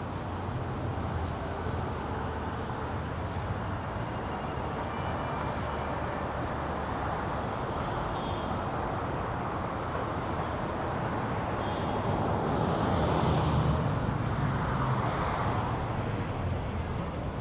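City street traffic: a steady hum of passing cars, with one vehicle passing close about two-thirds of the way through, swelling and then fading.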